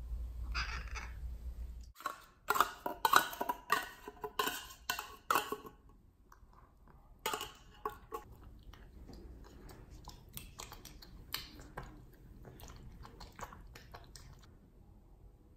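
Wet cat food being scraped and knocked out of a metal can into a plastic food container: a quick run of sharp scrapes and clicks lasting a few seconds, with one more knock a little later. Then a cat eating, with faint, scattered chewing clicks.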